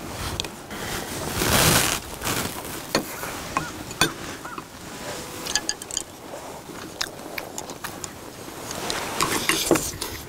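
Eating sounds: spoons and chopsticks clicking against ceramic bowls, with chewing between the clicks. A loud rushing noise comes about a second and a half in.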